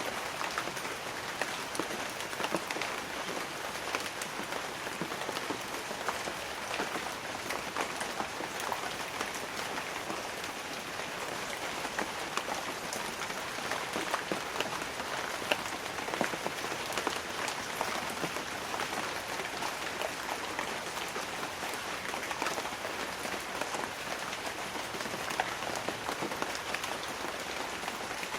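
Light rain falling on banana leaves: a steady hiss of rain with many separate drops striking the leaves close by. No thunder.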